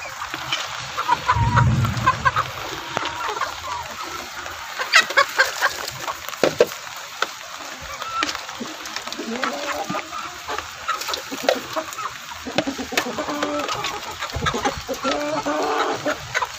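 A flock of chickens clucking and calling as they feed, with scattered sharp clicks.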